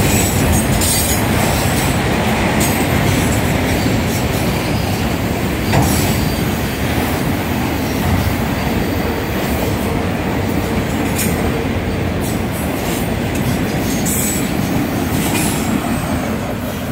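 Autorack freight cars rolling slowly past close by: a steady rumble of steel wheels on the rails, with a few sharp clicks and some wheel squeal.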